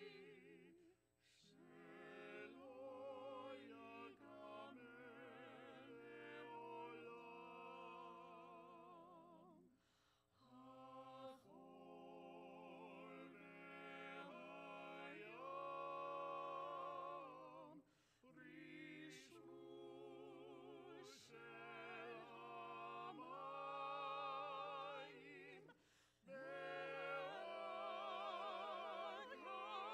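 A small choir singing a slow Hebrew song, with long held notes and vibrato, in phrases of about eight seconds separated by short breaks.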